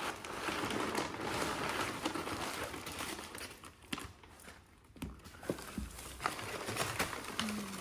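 Packaging rustling and crinkling as a boxed live plant is unwrapped: dense rustling for the first three seconds or so, then quieter, with scattered sharp clicks and light knocks.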